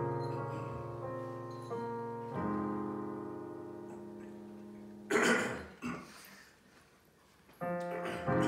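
Digital piano playing slow, sustained chords, a new chord struck every second or two. About five seconds in the chords die away, with a brief loud noise and then a moment of near quiet. The chords start again near the end.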